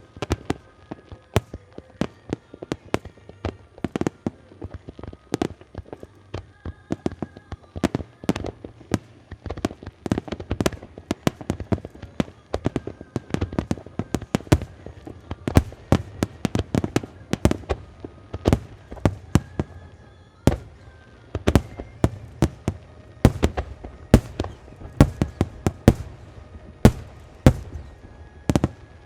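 Fireworks display: a dense, continuous barrage of aerial shell bursts, several bangs a second.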